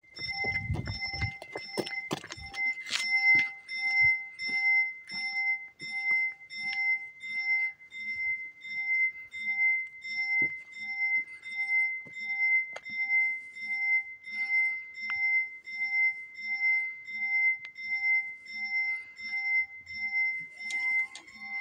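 Italian railway level-crossing warning bell ringing steadily, an electronic chime repeating about two to two and a half times a second, signalling that the crossing is about to close for an approaching train. Near the end a steady rising whine joins it as the barrier motor starts to lower the boom.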